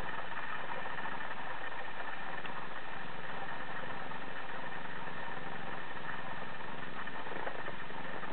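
Mother cat purring steadily while her kittens nurse against her, a continuous rumble without a break.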